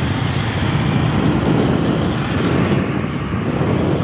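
Motorcycle running at a steady road speed, a continuous low engine hum mixed with road and traffic noise.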